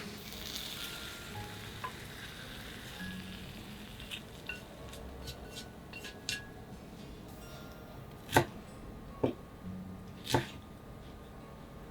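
Food sizzling quietly in an iron frying pan while it is stirred, with light ticks of the utensil and three sharp knocks against the pan in the second half.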